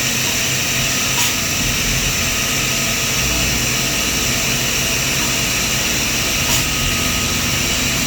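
CNC milling machine running steadily while engraving with a 4th-axis rotary setup: a steady high-pitched spindle whine over machine hum, with a couple of faint ticks.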